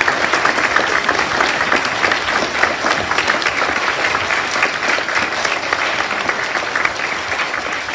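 An audience of schoolchildren applauding: dense, steady clapping that eases off slightly near the end.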